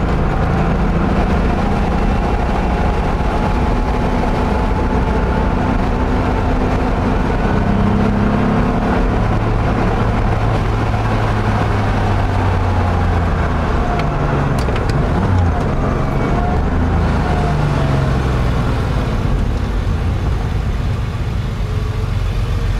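Porsche 911 flat-six engine running under way with tyre and road noise, heard from inside the cabin. The engine note rises and falls in pitch as the car drives on.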